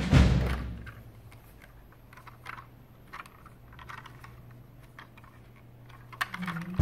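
Faint, scattered clicks and taps of a plastic transforming toy car being picked up and handled in the hands. A music track fades out in the first second, and the music comes back in at the very end.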